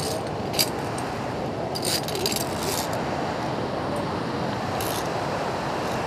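Steady rushing of a waterfall running high with snowmelt. Over it come short metallic clinks of via ferrata carabiners against the steel safety cable: once about half a second in, a cluster around two seconds in, and once more near five seconds.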